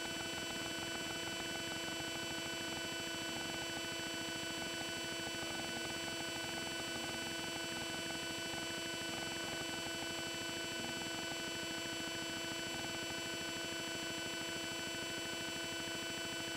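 Steady electrical hum, several fixed tones over a faint even hiss, with nothing else happening.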